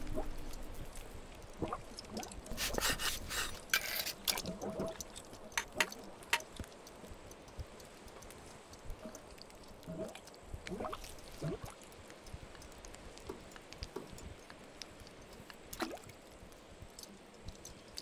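Quiet camp sounds of utensils being handled: scattered sharp clicks and crackles, a cluster of them a few seconds in, with faint liquid sounds and a few short rising squeaks about ten to eleven seconds in.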